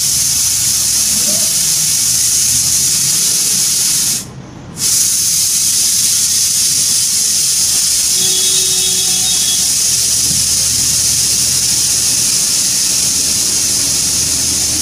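Steady hiss of recording noise, strongest in the highs, cutting out briefly about four and a half seconds in.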